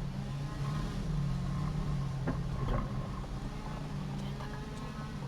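Car engine running at low speed, heard from inside the cabin as a steady low hum while the car creeps along.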